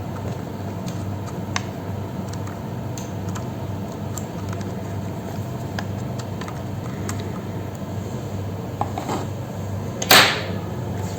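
Scattered light clicks over a steady low hum, with one brief, louder rustling burst near the end.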